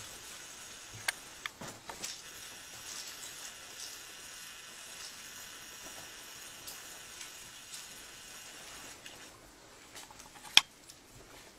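Faint steady hiss with a few scattered clicks in the first two seconds and one sharp click about ten and a half seconds in.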